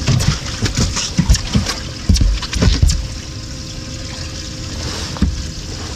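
Water trickling and lapping against a fishing boat's hull, a steady hiss throughout. Over it come low thumps and a few sharp knocks in the first three seconds.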